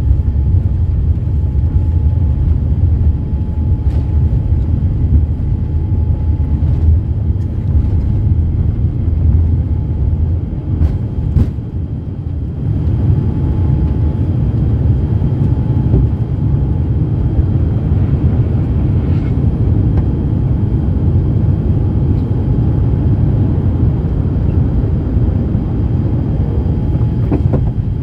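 Boeing 787-8 jet engines at takeoff thrust, heard from inside the cabin as a steady deep rumble, with a few knocks from the gear on the runway before the airliner lifts off about halfway through and climbs.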